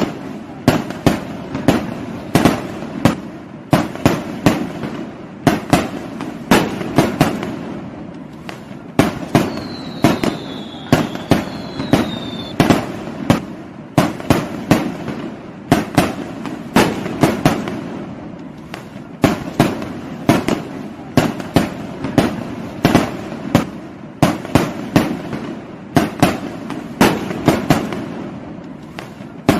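Fireworks and firecrackers going off in a continuous run of sharp bangs, several a second in clusters, with a couple of falling whistles about ten seconds in.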